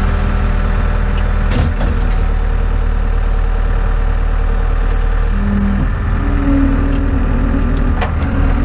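Skid steer engine running steadily, its drone stepping up in pitch about five to six seconds in as the machine works. A couple of sharp knocks can be heard, one early and one near the end.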